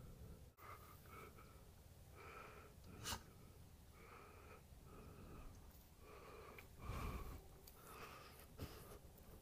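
Black Labrador breathing and snuffling faintly into a plastic watering can held in its mouth, short breaths repeating about once a second. There is a sharp click about three seconds in and a low thump near seven seconds.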